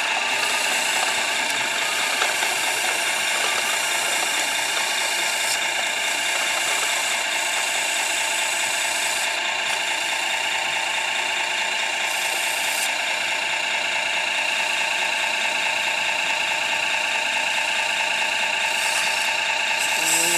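Steady high whine of radio-controlled model machines' small electric motors and gearing running, with light mechanical rattle.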